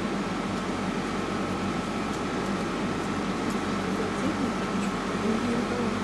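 Steady room hum and hiss, like a fan or air conditioner running, with a faint high whine held throughout.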